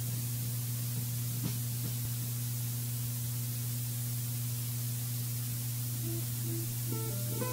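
Steady electrical hum and hiss of an old live recording, with a faint click about one and a half seconds in. Near the end a guitar starts picking a few faint notes.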